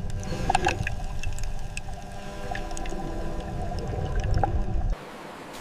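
Low rumbling water noise with scattered clicks and faint steady tones, typical of a turtle's water clip; it cuts off sharply about five seconds in.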